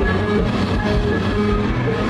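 Live rock band playing through a PA: electric guitars over bass and a drum kit, with a steady beat.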